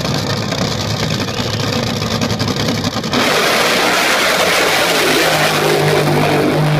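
Racing powerboats running loud at full throttle, with the hiss of their spray. The sound steps up louder about three seconds in, and a steady low engine note holds near the end.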